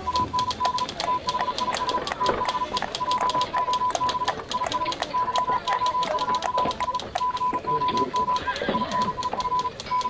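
Morse code beeping: one steady pitch keyed on and off in short and long pulses, over a fast, even clatter of telegraph clicks.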